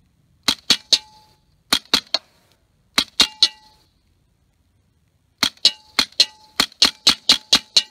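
Winchester Model 74 semi-automatic .22 Short rifle firing in quick strings: three short bursts of two or three shots, then a run of about ten shots a fifth to a quarter of a second apart from about halfway on. A short metallic ring follows several of the shots.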